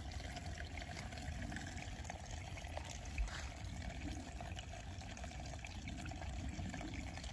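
Distant train horn held as a long, faint steady tone, over a soft hiss of trickling water.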